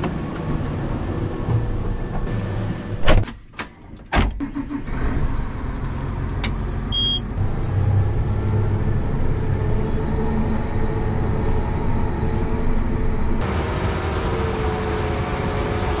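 Tractor cab door slammed shut with a few sharp clunks about three to four seconds in, then a John Deere tractor's diesel engine running steadily, heard from inside the cab.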